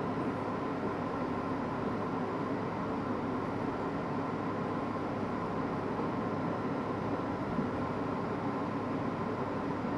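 An R62A New York City subway car running steadily on elevated track, heard from inside at the front window: even wheel-on-rail running noise with faint steady tones in it.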